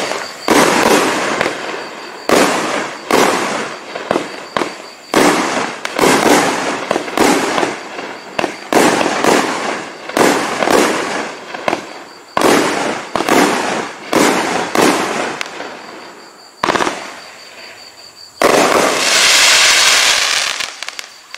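A 20-shot consumer firework cake firing its shells in quick succession, a run of sharp bangs about one or two a second with a short pause near the middle. Near the end a final shot gives way to a loud rush of noise lasting about two seconds.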